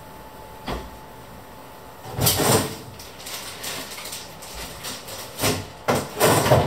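Someone moving about a kitchen and handling things: a few short, noisy knocks and scrapes, loudest about two seconds in and again near the end.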